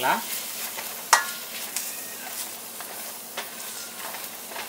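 Grated carrots sizzling in ghee in a stainless steel pan as they are stirred and turned with a spatula, a steady frying hiss. A few clinks of the spatula against the pan, the loudest and ringing about a second in.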